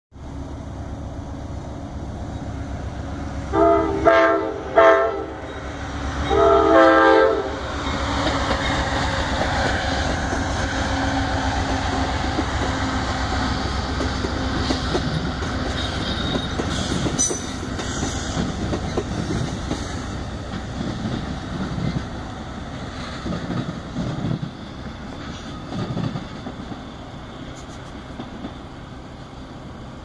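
Amtrak Empire Builder passenger train led by a P42 diesel locomotive, blowing its multi-note air horn three times about four to seven seconds in, the second blast short. It then passes with a steady rumble and wheel clickety-clack, fading toward the end as the train moves away.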